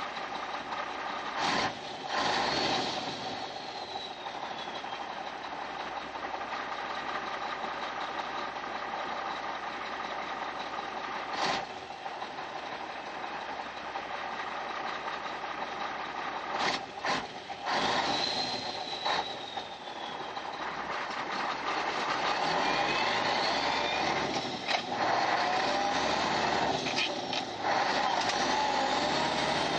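1993 Mack RD dump truck's 300 Econodyne diesel engine, heard from inside the cab, pulling under a half load of asphalt as the driver works through the gears. Several times the engine note dips briefly and its pitch falls at a shift, then climbs again as the engine pulls.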